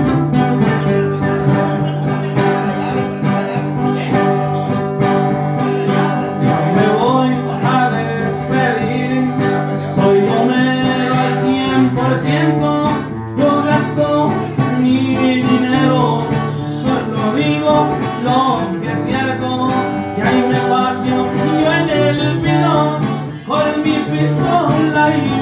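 Live corrido played on two acoustic guitars, strummed chords under picked melodic runs. The playing is steady and full throughout.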